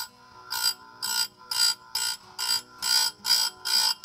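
Oregon 520 chainsaw grinder's wheel grinding a badly damaged saw-chain tooth in short repeated cuts, a little over two a second, each a brief grind over the steady whine of the running grinder motor.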